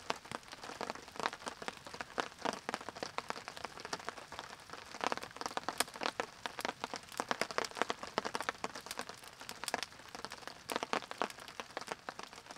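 Campfire crackling: a dense, irregular run of sharp snaps and pops from burning wood.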